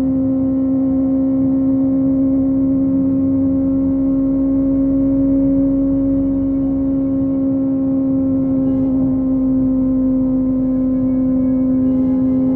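Kawasaki ZX-25R's 250 cc inline-four with a Yoshimura exhaust, cruising at high, nearly constant revs. The engine's steady high hum runs over a low rumble of wind.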